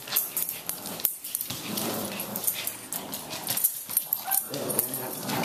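Two dogs, a Boston terrier and a brindle dog, playing rough over a plush toy: dog play noises in bouts, mixed with scattered sharp clicks and scuffles on the wood floor.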